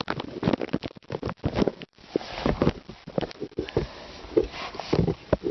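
Irregular clicks, knocks and rubbing as the unbolted clutch release cylinder and its parts are handled.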